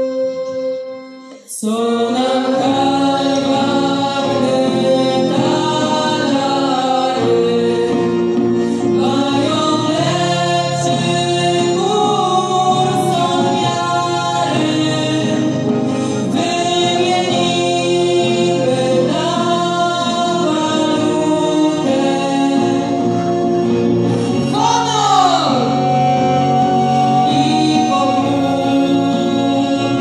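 Folk band of accordion, guitar and brass accompanying a group of singers in unison, with a short break about a second in before the voices come in.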